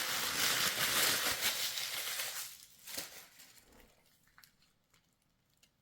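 McNugget Buddies Happy Meal toy packaging crinkling as it is opened, fading out after about two and a half seconds, then a single click about three seconds in and near silence.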